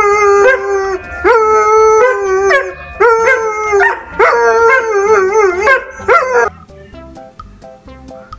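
A dog howling with its head thrown back: five long wavering howls in a row. After about six and a half seconds they stop, and soft plucked-guitar music takes over.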